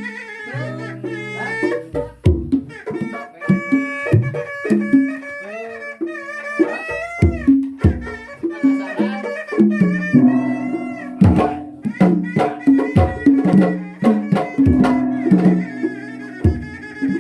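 Sundanese kendang pencak music: a tarompet shawm playing a wavering, ornamented melody over frequent kendang drum strokes.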